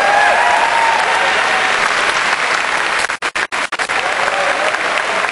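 Crowd applauding, with voices calling out over the clapping; the sound drops out briefly a few times a little past the middle.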